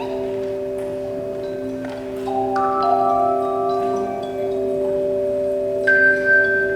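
Tone chimes ringing: pitched notes struck one after another and left to sustain, building up a held chord, with a brighter higher note added near the end.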